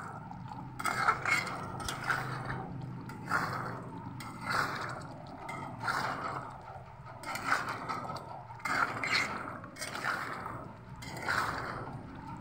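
A metal spatula scraping and stirring chicken curry around a pan in repeated strokes, roughly once a second, as the curry is fried with its water cooking off.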